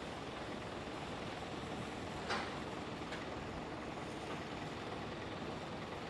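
Steady rumble and tyre hiss of road traffic on a wet street as a coach approaches, with a short sharp hiss about two seconds in.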